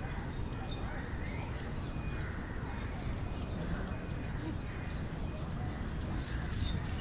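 Outdoor street ambience: a steady low rumble with faint distant voices and no distinct sound standing out.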